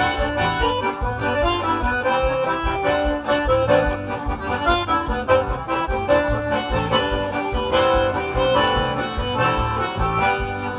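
Instrumental break of a forró song: a group of accordions plays the melody over a steady percussion beat.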